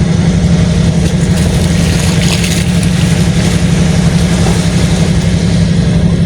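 Steady low rumble of a running motor vehicle engine, with a short hiss about two seconds in.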